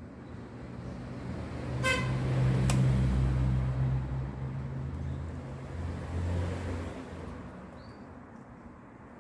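A motor vehicle passing by, its low rumble swelling to a peak about two to three seconds in and then fading away. A short horn toot sounds about two seconds in, followed by a sharp click.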